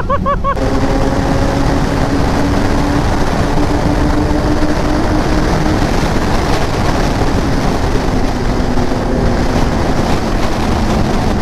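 Sport motorcycle cruising at highway speed under heavy wind rush: the engine holds a steady drone at constant revs, dipping slightly in pitch in the second half.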